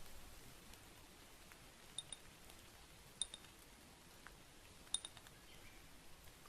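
Three light paired clinks of a porcelain teacup, about two, three and five seconds in, each a short ringing chink against an otherwise near-silent room.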